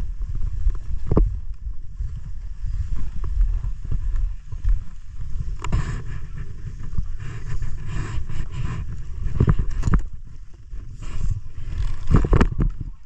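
Low, gusty wind noise on a body-worn action camera's microphone, with scrapes, rustles and knocks of gloves, clothing, snow and snowboard binding straps as the rider sits on the snow strapping in. A few sharper knocks stand out: about a second in, around the middle and near the end.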